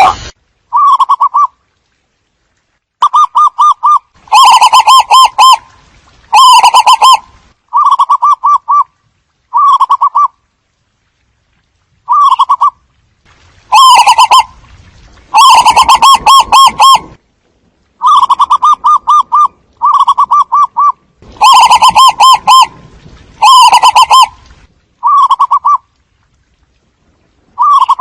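Zebra doves calling: loud, repeated bursts of rapid staccato cooing, each lasting about half a second to a second and a half, with short silent pauses between them.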